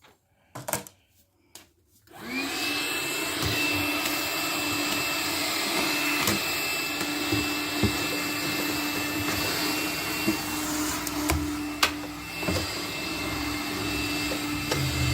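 Makita 18-volt cordless vacuum switched on about two seconds in, its motor whine rising quickly and settling into a steady run. A few clicks come before it starts, and scattered ticks sound while it runs.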